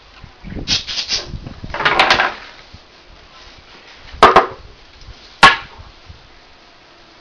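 Toy blocks clattering and knocking together as a toddler builds, with two sharp knocks about a second apart in the second half that are the loudest.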